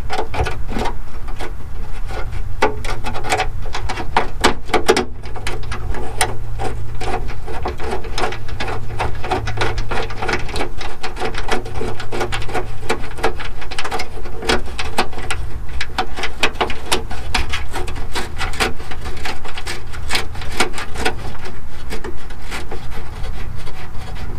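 Plastic fender-well liner and its bolt being worked into place by hand: a long run of irregular clicks, knocks and rubbing over a steady low hum.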